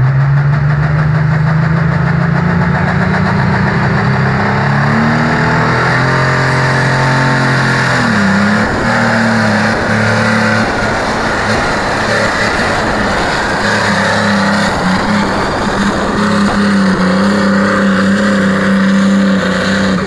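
Diesel engine of a modified pulling tractor revving hard under load as it drags the weight sled. Its pitch climbs over the first few seconds, dips briefly about eight seconds in, then holds high and steady.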